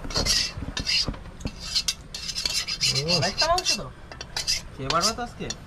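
A metal spoon scraping and clinking against the inside of a metal cooking pan, a quick run of short strokes, as the last of a chicken curry is scraped out into a bowl.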